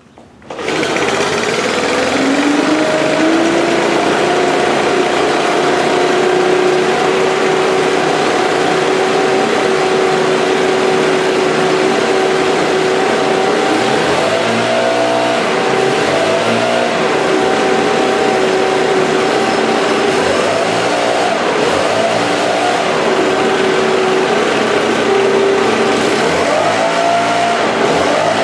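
Several freshly rebuilt Stihl BR600 backpack blowers' 4-MIX engines running together, loud and steady. A few times in the second half the throttles are opened and eased off, so the pitch rises and falls.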